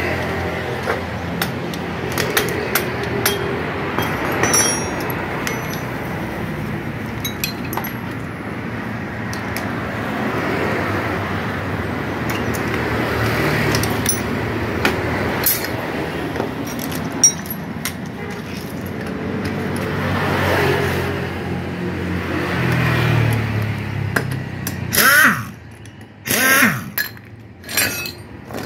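Metal tool clinks and workshop noise as a motorcycle engine is taken apart. Near the end, an air impact wrench fires in about three short, loud bursts.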